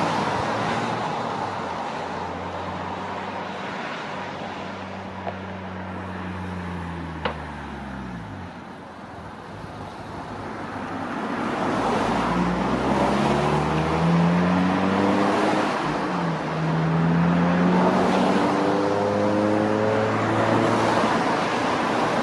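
Two-bladed helicopter flying with an underslung load on a long line, its rotor and engine running steadily. Its pitch drops a few seconds in and the sound fades slightly, then from about ten seconds in it grows louder and rises in pitch as it comes closer.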